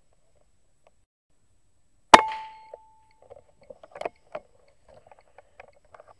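Air rifle firing a single shot about two seconds in: a sharp crack with a short ringing tone that fades over about half a second. Faint scattered clicks and ticks follow.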